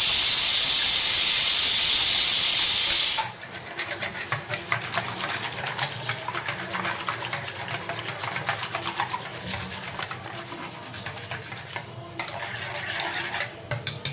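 A loud steady hiss cuts off abruptly about three seconds in. After it comes the quick, irregular clinking and scraping of a wire whisk beating gram flour into buttermilk in an aluminium pot, mixing the kadhi batter.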